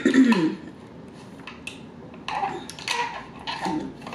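Slushy being sucked up through a plastic straw from a large fast-food cup: a few noisy slurps in the second half. A short falling vocal sound comes at the start.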